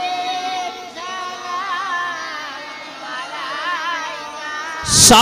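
Softer voices singing a wavering, ornamented tune: the drawn-out refrain of a naat, a devotional song to the Prophet. Near the end a much louder voice comes in close to the microphone, singing.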